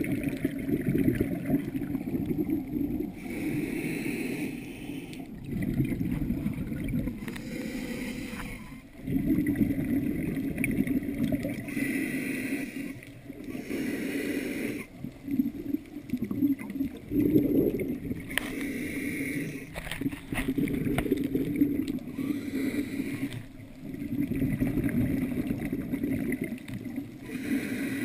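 Scuba diver breathing through a regulator underwater: a short hissing inhalation every four seconds or so, each followed by a longer burble of exhaled bubbles.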